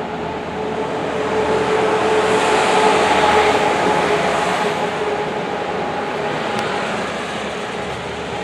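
A large road vehicle passing close by: steady engine and tyre noise with a constant whine, swelling to a peak about three seconds in and then easing off.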